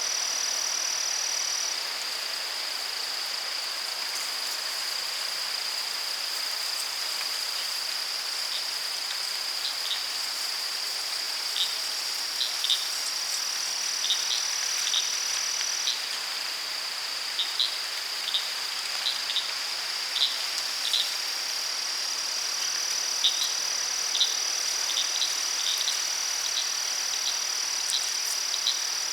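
Daytime forest ambience in late summer: insects trill in one steady, high, unbroken drone over a soft hiss. From about nine seconds in, short high chirps are scattered irregularly through it.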